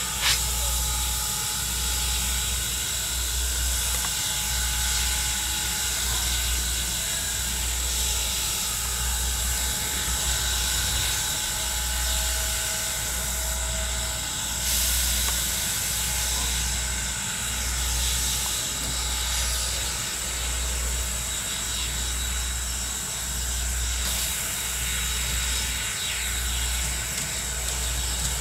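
Norfolk & Western 475, a 4-8-0 steam locomotive, working slowly under power: a deep, even exhaust beat about once a second over a steady hiss of steam.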